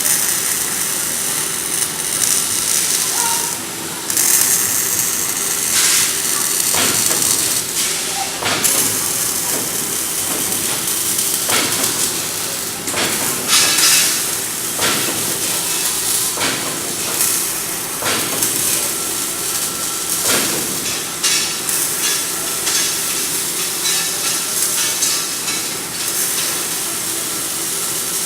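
Robotic arc welder running a weld: a steady, loud, crackling hiss from the arc, with irregular sharper crackles through it.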